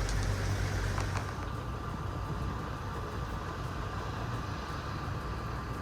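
Outdoor street noise: a steady low rumble of road traffic under a noisy hiss, with a few faint clicks early and a thin steady high tone coming in about a second in.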